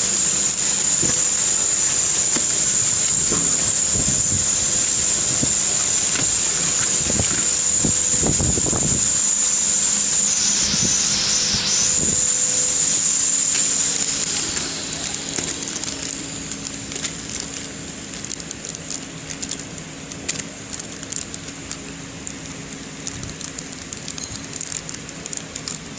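Horizontal flow pack wrapping machine running steadily with a constant high whine and a lower hum, with knocks and clicks. A little past halfway it gets quieter, leaving a softer hum and scattered clicks.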